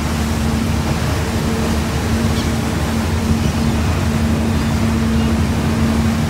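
A cruise boat's engine humming steadily under the rush of its churning wake and wind.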